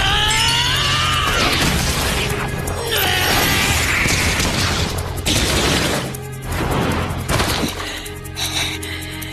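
Anime fight-scene soundtrack: a shouted yell rising in pitch at the start and another shout about three seconds in, over dramatic background music, with crash and hit sound effects.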